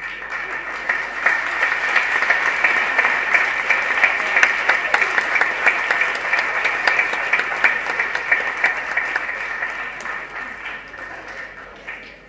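Audience applauding, starting all at once and dying away over the last couple of seconds.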